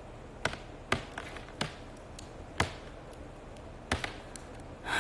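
Irregular sharp taps and clicks, about seven in a few seconds, over faint room noise.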